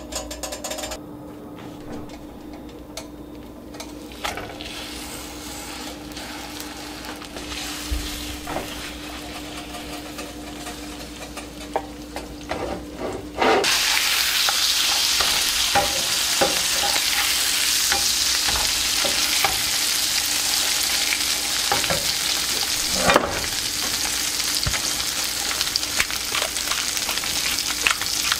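Butter melting quietly in a nonstick frying pan, with a few small crackles. About halfway through, pieces of lake trout go into the hot butter and the pan breaks into a loud, steady sizzle of frying, with occasional knocks and scrapes of a spatula.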